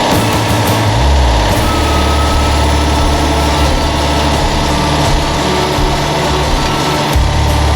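Background music with held bass notes that change about a second in and again near the end.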